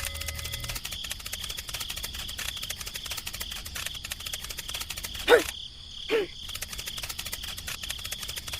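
Insects trilling steadily in a fast pulsing buzz. Two short calls sweep quickly downward in pitch about five and six seconds in.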